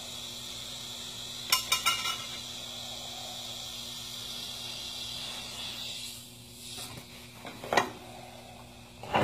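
Light metallic clinks of steel parts being handled, a quick cluster about a second and a half in and a single one near the end, over a steady hum and hiss.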